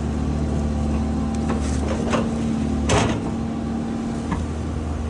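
Excavator's diesel engine running steadily, with several sharp metallic clanks from the digging, the loudest about three seconds in.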